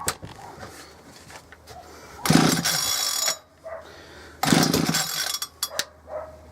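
Ryobi RHT2660DA two-stroke hedge trimmer being pull-started: two pulls on the recoil starter about two seconds apart, each about a second long, with the engine turning over but not catching. Light clicks and knocks come between the pulls.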